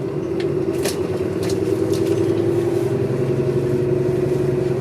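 City transit bus under way, heard from inside the cabin: its engine and drivetrain run with a steady whine over a low drone and road noise, and a few sharp rattles or clicks sound in the first couple of seconds.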